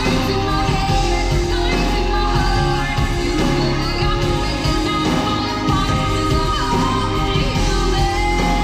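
Music with a singing voice over a strong, steady bass.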